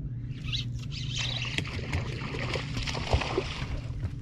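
Water splashing and churning as a hooked largemouth bass thrashes at the surface beside the boat, building about a second in, over a steady low hum.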